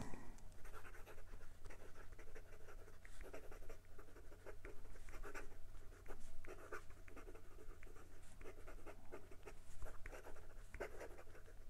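Lamy Dialog cc fountain pen's gold nib writing quickly across notebook paper: a run of soft, short scratching strokes over a steady low hum. The nib is very wet and bouncy and writes without any trouble.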